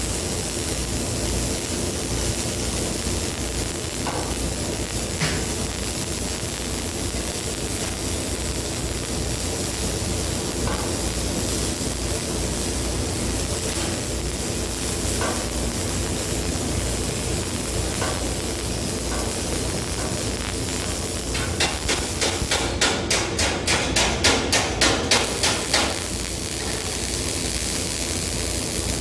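A steady mechanical hiss and hum with a few faint knocks. About twenty-two seconds in comes a run of rapid strikes, about four a second, lasting some four seconds.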